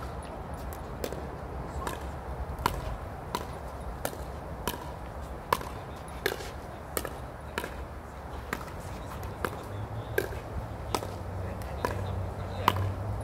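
Pickleball paddles striking a plastic pickleball in a steady rally, a sharp pop about every three quarters of a second.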